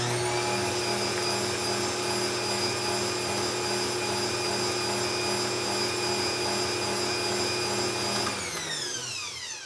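Bosch Compact Kitchen Machine stand mixer running at a steady speed, its motor whining as the whisks beat cake batter. About eight seconds in it is switched off, and the whine falls in pitch as it spins down.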